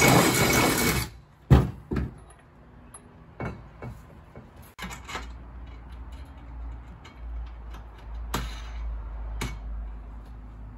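Power drill boring through aluminium, running hard and stopping about a second in. Then a sharp knock and scattered clicks and knocks of metal parts being handled.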